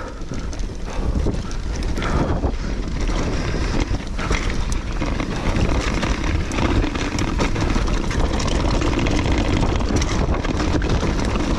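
Mountain bike rolling fast down a gravel and rocky track: tyres crunching over stones and the bike rattling, with frequent small knocks, under a steady wind rumble on the microphone.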